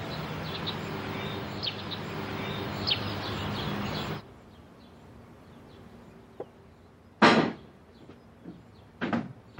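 Outdoor ambience with a steady hiss and a few short bird chirps. About four seconds in it gives way to quiet room tone, broken by a short, sharp sound about seven seconds in and another near the end.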